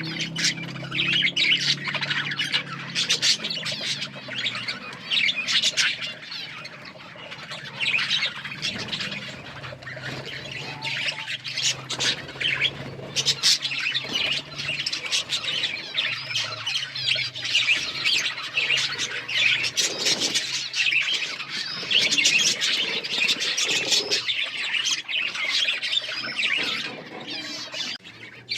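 A flock of budgerigars chattering, with many overlapping chirps and squawks and no break.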